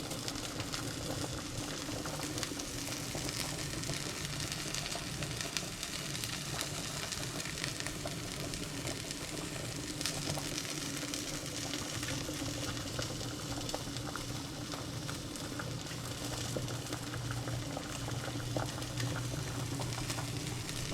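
Stovetop cooking: already-cooked chicken sizzling as it reheats in a pan while fettuccine boils in a pot, a steady crackling sizzle with fine pops over a low hum.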